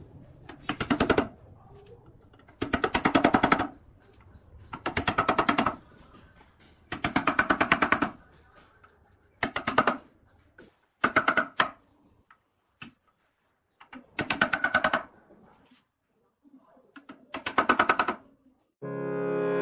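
A hammer tapping end caps into the ends of a square steel-tube frame, in about eight quick flurries of light, rapid blows with short pauses between. Music starts near the end.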